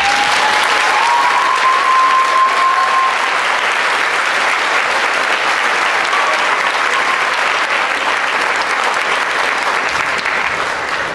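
Audience applauding loudly, starting abruptly as a number ends, with one high note rising and held over the clapping for the first three seconds or so.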